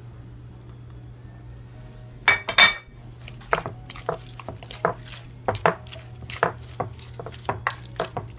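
A utensil clinks sharply twice against a glass baking dish, then taps and scrapes around it at about three strokes a second as chopped vegetables are stirred into beaten eggs.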